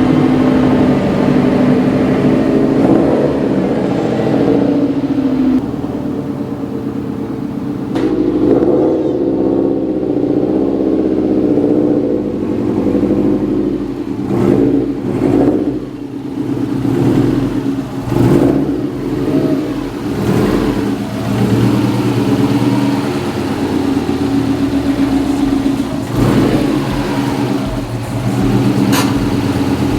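Car engine running, with its pitch and loudness rising and falling several times around the middle as it revs and accelerates.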